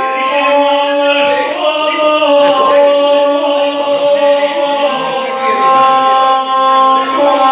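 A gusle, a single-stringed bowed Balkan folk instrument, playing a nasal, sustained, drone-like tune. It accompanies a guslar's chanted epic singing, which wavers over the held notes in the first half.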